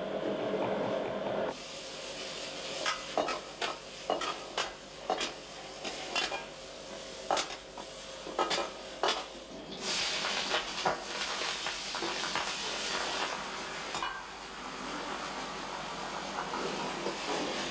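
Kitchen cooking sounds: metal utensils clinking and knocking against pots and pans. About ten seconds in there are a few seconds of sizzling from frying food.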